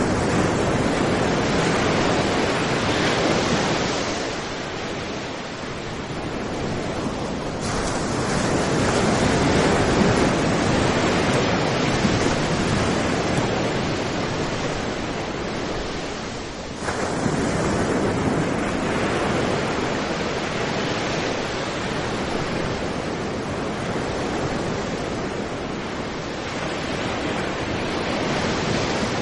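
Caribbean Sea surf breaking on a sandy beach: a continuous wash of waves that swells and eases every few seconds, changing abruptly twice where the recording is cut.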